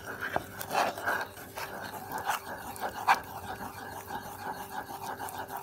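Wooden spoon stirring milk, melted butter, sugar and cocoa in an enamel saucepan, with irregular scrapes and knocks against the pan, over a steady background hiss and low hum.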